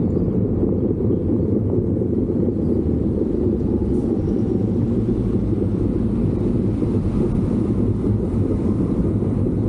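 Steady low rumble of a vehicle under way, with wind on the microphone.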